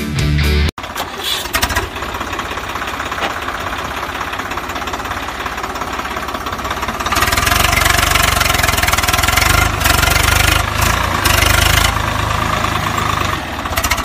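Music cuts off under a second in. Then a tractor engine starts and runs with a knocking idle. It gets louder about seven seconds in, with a few brief dips.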